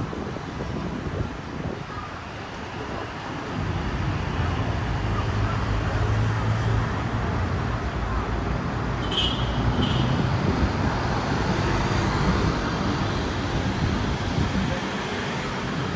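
Steady road traffic, with a heavier engine rumble building a few seconds in and easing off past the middle. Two short high beeps sound about nine and ten seconds in.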